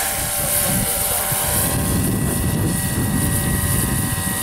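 Large-scale RC Eurocopter EC-145 turbine model helicopter in flight: a steady high turbine whine over the fast beat of the rotor blades, a little louder through the middle.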